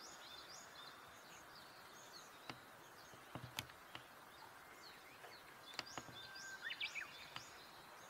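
Faint, high, short chirps of small songbirds, scattered throughout with a busier run about six to seven seconds in, over a faint steady hiss. A few sharp clicks stand out as the loudest sounds.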